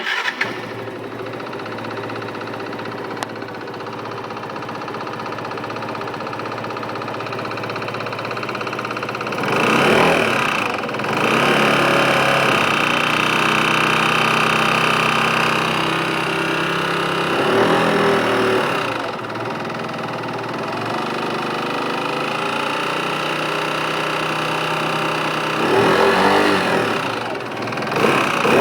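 Yamaha X-Max scooter's single-cylinder engine starting, then idling and briefly revved three times, about 10, 18 and 27 seconds in. The owner is checking it for a small rattling, clicking noise that he finds a little less marked than the day before and says comes on more when the engine is hot.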